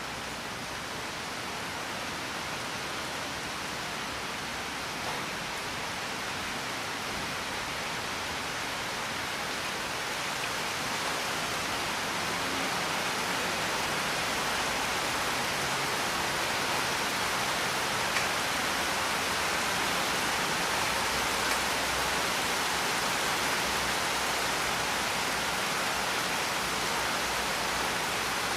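Steady rain, an even hiss of falling drops, swelling slightly in loudness over the stretch.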